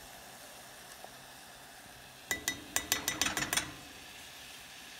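A small metal measuring cup rapped quickly against the rim of an enamelled cast-iron saucepan, about nine or ten sharp ringing clinks over a second and a half starting about two seconds in, knocking out the last of the ground spice.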